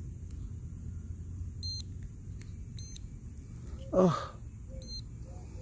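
Short high electronic beeps, three of them at uneven spacing, from a toy racing quadcopter's electronics while it sits ready for take-off. About four seconds in comes a brief, louder sound that falls quickly in pitch.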